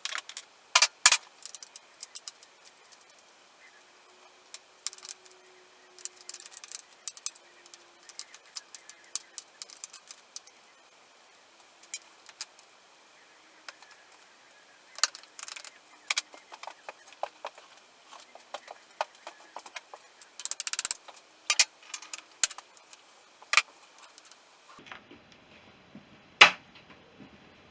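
Irregular metallic clicks and clinks of hand tools and loose parts on a Honda CB350 engine being dismantled. The background changes abruptly near the end.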